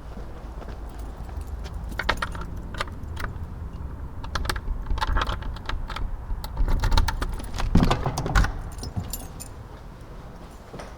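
Footsteps, a run of irregular crisp steps over a steady low rumble, heaviest about two-thirds of the way through.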